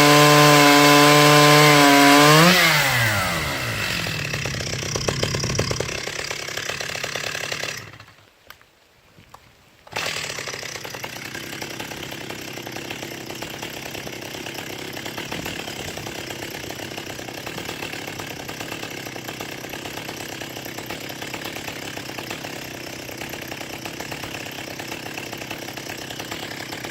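Stihl 028 Wood Boss two-stroke chainsaw running at high revs. About two and a half seconds in, the throttle is released and the engine pitch falls away. After a brief near-silent gap, a steady, quieter running sound follows.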